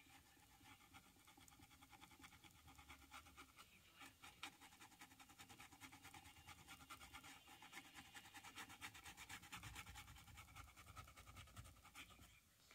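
Faint, rapid scratching of a paintbrush's bristles worked back and forth over textured canvas as paint is scrubbed on.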